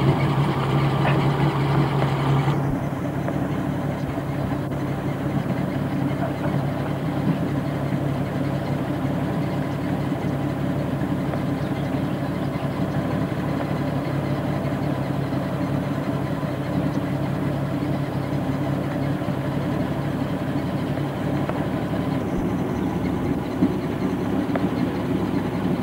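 A Jeep CJ's engine idling with a steady drone. A deeper hum stops about two and a half seconds in.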